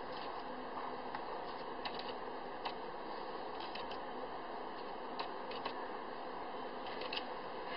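Playing cards being handled and laid down, giving a scattering of light clicks and snaps, some in quick pairs, over a steady background hiss.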